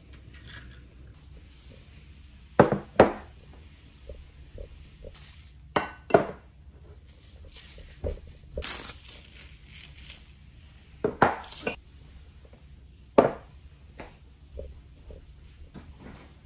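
Dishes and glass food containers being set down on a table one after another: a series of sharp clinks and knocks, often two close together, a few seconds apart.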